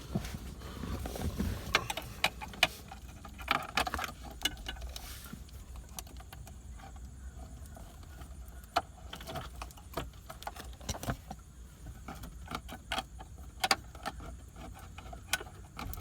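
Hard plastic console trim faceplate being handled and pressed back into place: irregular clicks, taps and light rattles, several sharper knocks in the first few seconds.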